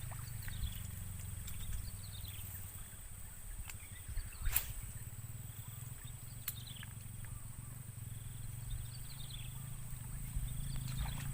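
An animal calling over and over in short descending chirps every second or two, over a steady low rumble. Two sharp clicks come just before and after the middle.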